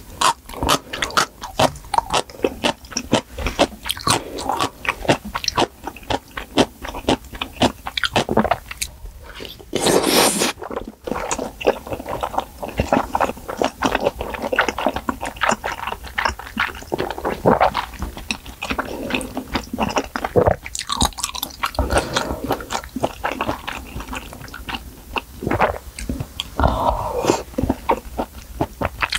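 Close-miked chewing of a mouthful of spicy malatang: rapid wet mouth clicks and smacks with some crunching, going on throughout, with a short, louder hiss about ten seconds in.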